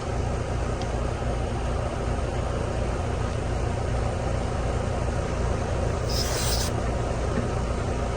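Ruud split-system condenser unit running with a steady hum. About six seconds in comes a short hiss of refrigerant as a gauge hose is fitted to the suction-line service port.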